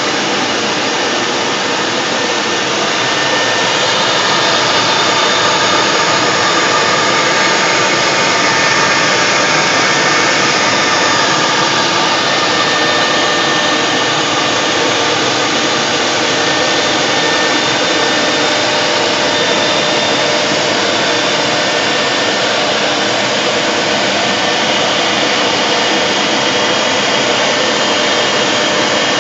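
CNC router spindle running at high speed while its bit routes a door-panel profile into a board: a steady, loud machining noise with a faint high whine.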